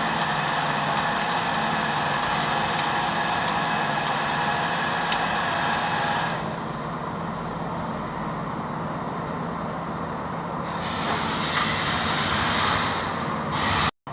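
Kubota D905 three-cylinder diesel engine running, with a few sharp clicks over the first five seconds. About six seconds in the sound becomes quieter and duller, then grows louder again near the end before cutting off suddenly.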